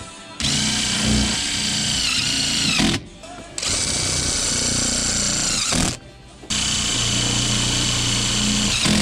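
Cordless drill driving screws into a sheet-metal duct elbow in three runs of about two to three seconds each, its motor whine dropping in pitch as each run stops. The drill is in its low speed setting, so the screws go in slowly.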